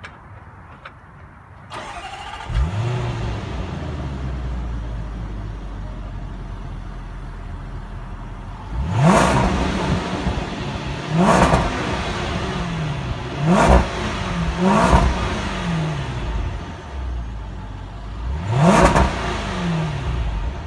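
A Range Rover Supercharged's 5.0-litre supercharged V8 starts about two seconds in and settles to idle. It is then revved in five short blips, each rising in pitch and falling back to idle, heard from behind the exhaust.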